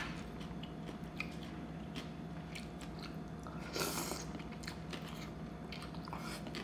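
Close-miked eating sounds: chewing and wet mouth clicks on a mouthful of Thai rice noodles in curry sauce, with one louder slurp as noodles are sucked in about four seconds in.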